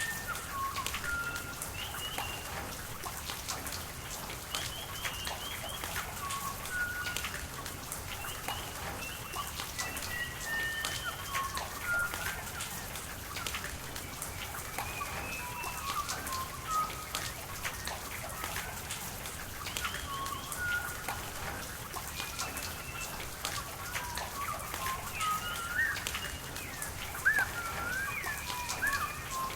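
Rain falling steadily, with many separate drops ticking, over an even hiss of running water. Birds call throughout in short chirps and whistled notes, busier near the end.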